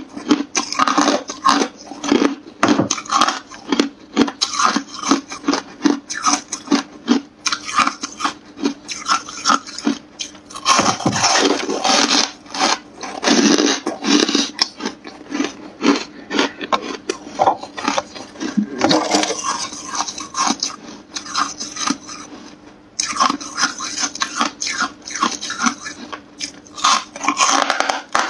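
Hard, frost-covered freezer ice being bitten and chewed: a dense, rapid run of crunches and crackles in clusters, with short lulls between bites. A faint steady hum lies beneath.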